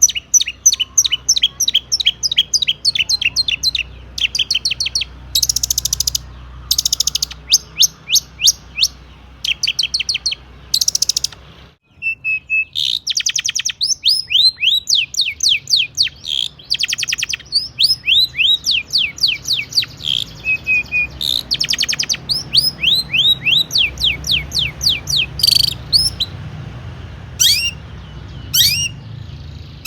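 Long-tailed shrike singing a fast, loud song: rapid runs of sharp downward-sweeping whistles, several a second, broken up by harsh buzzy rattles, with the mimicked calls of other birds worked in. The song breaks off for a moment near the middle.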